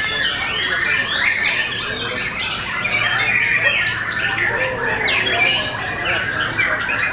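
White-rumped shamas (murai batu) singing all at once, a dense chorus of overlapping whistles and chirps with no pause.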